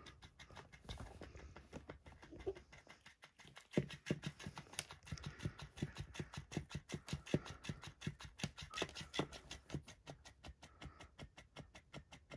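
Electric flopping-fish cat toy wiggling, its tail flapping in a steady rhythm of about four taps a second that starts a few seconds in. Before that, irregular scuffling as the cat paws and wrestles the toy.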